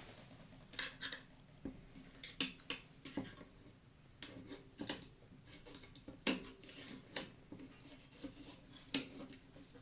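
Irregular light metallic clicks and scrapes of a flat screwdriver working at the carbon brushes of an LG YDC01-20A vacuum cleaner motor, pushing them aside so the armature can be seated. The sharpest click comes about six seconds in.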